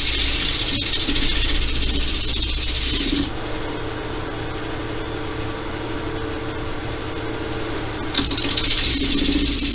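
Wood lathe running while a turned wooden ring on its chuck is hand-sanded: a loud, steady hiss for about three seconds. Then only the lathe's steady motor whine and hum for about five seconds, and the sanding hiss starts again near the end.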